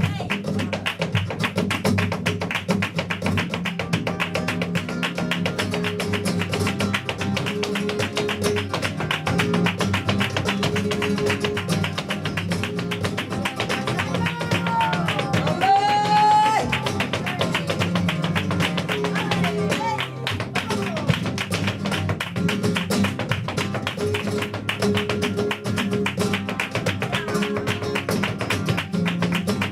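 Flamenco guitar playing soleá por bulerías under a dancer's rapid footwork, dense heel and toe strikes on a wooden stage. About halfway, a voice cries out once with a gliding pitch.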